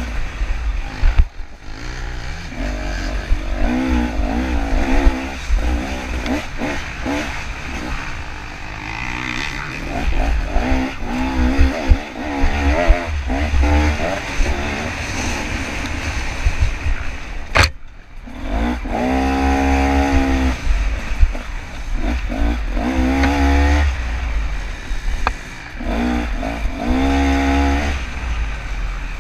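Two-stroke KTM 300 dirt bike engine revving up and down again and again under hard riding, with an uneven low rumble underneath. A single sharp knock comes about two-thirds of the way through, the engine sound dips briefly, then the revs climb again.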